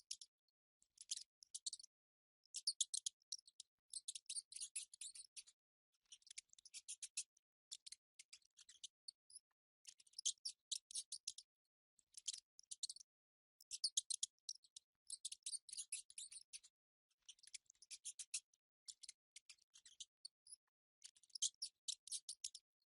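Mice making bursts of rapid, high-pitched clicking chatter, each burst about a second long with short pauses between them.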